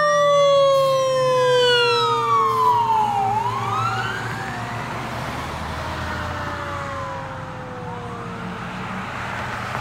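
Fire engine's siren sounding as the truck drives away: rising and falling sweeps over a lower tone that slowly winds down, with the truck's engine and tyre noise underneath. It all fades steadily as the truck gets farther off.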